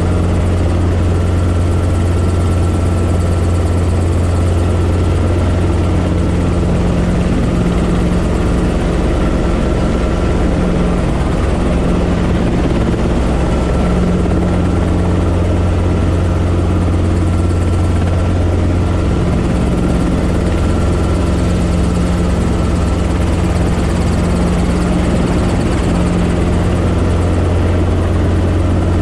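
Robinson R22 helicopter's engine and rotor running steadily, heard from inside the small cabin as an even, loud low drone.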